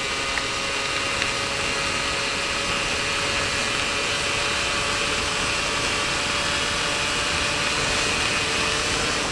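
Suzuki Satria 120R two-stroke single held at full throttle in sixth gear near its top speed of about 124 km/h: a steady high engine note, its pitch creeping up slightly, under heavy wind rush.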